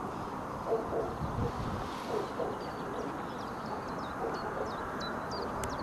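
Open-air ambience on a field: a steady rushing noise, with a few short high chirps, like small birds, in the second half and a single click near the end.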